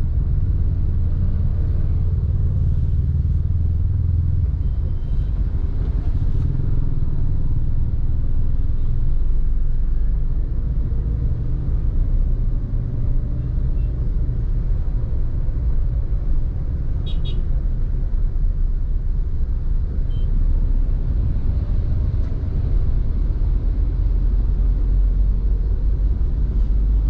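Road traffic rumbling steadily and low, with one short horn beep about two-thirds of the way through.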